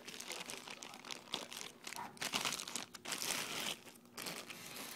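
Irregular rustling and crinkling, loudest in two stretches about halfway through and just after.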